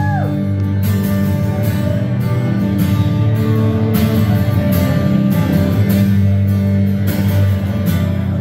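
Amplified acoustic guitar strummed in a steady rhythm through the PA, playing a country song's instrumental intro before the vocals come in.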